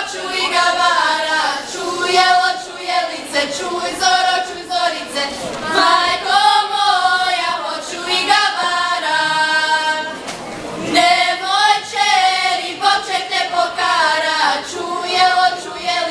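A group of young women singing a Serbian folk song together, unaccompanied. The held notes waver in ornaments, with a short breath pause about ten seconds in.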